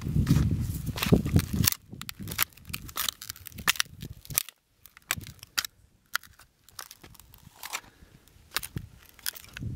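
Footsteps in sandal-like shoes crunching on desert sand and flaky rock crust, heard as sparse sharp crunches and clicks. A heavy low rumble fills the first two seconds, then stops.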